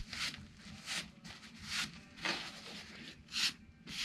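Camping gear being handled and packed: about six short, irregular rustling swishes, like fabric or bags being rubbed and stuffed.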